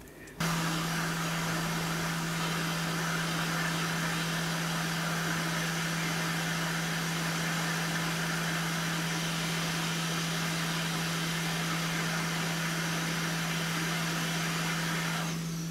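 Hot air rework station blowing: a steady rush of air over a steady low hum, starting about half a second in and cutting off near the end. It is heating a tiny three-legged surface-mount part to melt its solder and lift it off the circuit board.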